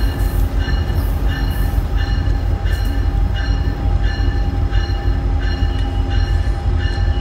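EMD SD70ACe diesel locomotives running at slow speed with a deep, steady rumble. Over it, a high tone sounds again and again, about every 0.7 seconds.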